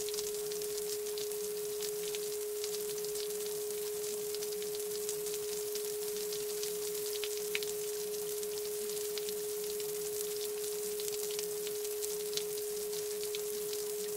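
A steady pure sine tone held unchanged throughout, over a light crackling hiss with scattered ticks and a faint pulsing hum underneath: the masking bed of a subliminal-affirmation track.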